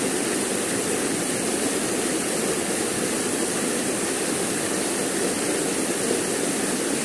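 River water rushing over rocks in a small rapid: a steady, even rush with no breaks.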